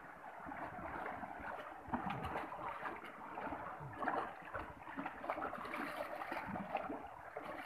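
Small waves lapping and splashing against shoreline rocks, an irregular wash of water with a few louder surges.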